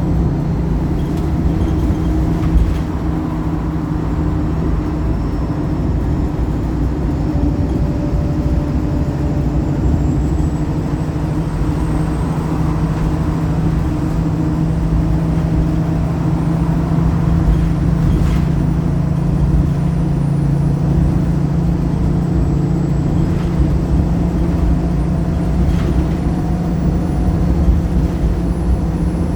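Wright Pulsar single-deck bus's diesel engine running steadily under way, its pitch holding nearly constant, with a few faint rattles and clicks.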